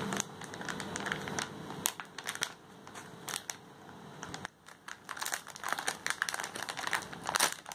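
Clear plastic bag packaging crinkling and crackling irregularly as hands grip and pull it open, with a few louder crackles about two seconds in and near the end.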